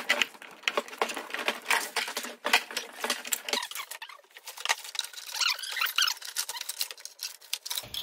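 Gloved hands rummaging through a car's wiring harnesses: a quick, irregular run of small clicks and rustles from plastic connectors and cables being moved.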